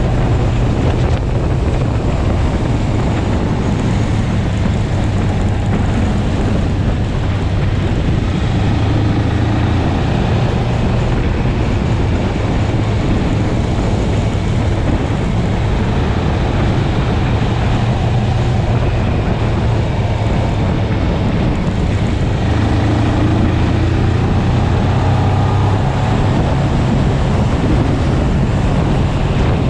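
650cc sportbike engine running steadily at cruising speed, heard with heavy wind noise buffeting the microphone.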